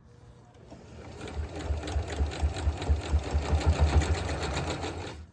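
Kenmore 385 sewing machine (a Janome build) sewing a straight stitch forward: the motor and needle pick up speed over the first two seconds, run at a fast, even beat, then stop abruptly at the end.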